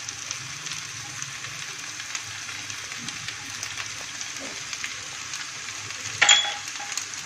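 Oil sizzling and crackling steadily in a frying pan as cauliflower, green peas and capsicum are tipped into the onion and tomato mixture. One short metallic clang rings out about six seconds in.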